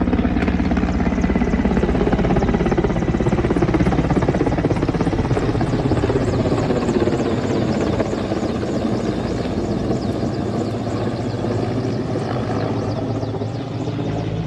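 Firefighting helicopter flying close by, its rotor and engine sound loud and steady, easing slightly in the second half.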